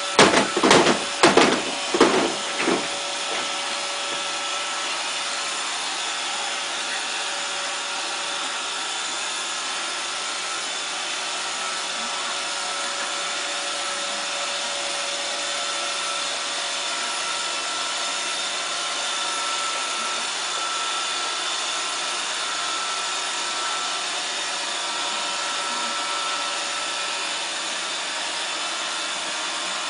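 Roomba robot vacuum running steadily on the felt of a pool table, its vacuum motor and brushes giving a continuous whirring hum. In the first few seconds a quick run of about six sharp knocks sounds over it.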